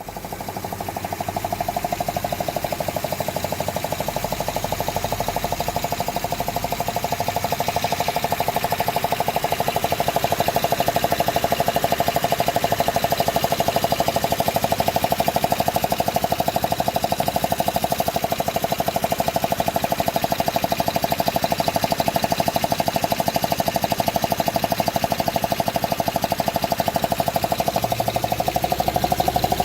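2005 Honda Odyssey's 3.5-litre V6 running with a fast, even rhythmic noise over the engine sound. It is the strange noise that remains after a cylinder 2 misfire was repaired with new gaskets and spark plugs, and its cause is unknown to the owner.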